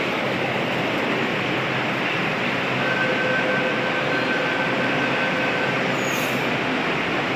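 Delhi Metro train running at an elevated station: steady, loud rail noise, with a faint high whine for about three seconds in the middle and a short hiss near the end.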